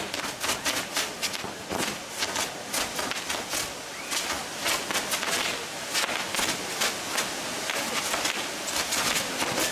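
A long row of ground-firework fountains firing together, a continuous hiss peppered with dense crackling and sharp pops.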